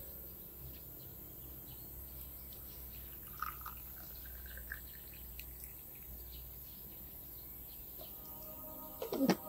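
Tea poured from a teapot into a glass tea cup on a saucer, a faint trickle, with birds chirping a few times midway. Near the end soft music comes in, with a sharp falling sweep as the loudest sound.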